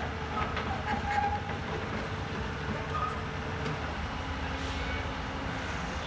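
Heavy diesel engine running steadily with a low drone, with a few light clanks over it.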